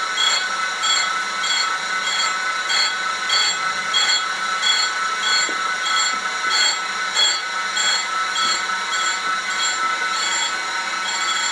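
Surface grinder wheel grinding a part turned in a spin jig: a steady high whine with a pulse of grinding hiss about twice a second as the wheel bites on each turn, which the machinist puts down to the part being uneven, warped from heat.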